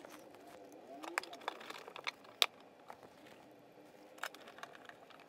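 Scattered light clicks and ticks of a screwdriver and a plastic outlet cover plate as the plate is fitted over the outlet and its screws are driven in, the sharpest click about two and a half seconds in.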